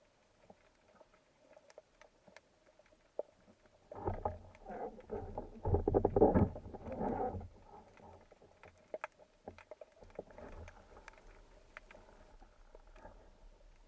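Water sound picked up by a camera during spearfishing: faint scattered crackling ticks, broken about four seconds in by a loud churning, bubbling rush of water that lasts about three and a half seconds.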